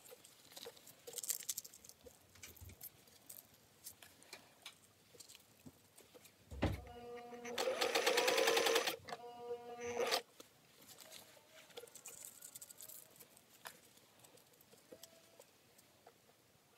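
Singer 500A sewing machine stitching in short runs: after a soft thump about six and a half seconds in, it runs for about two seconds, then gives one brief burst about a second later. The rest is quiet, with faint clicks and rustles as the fabric is handled between runs.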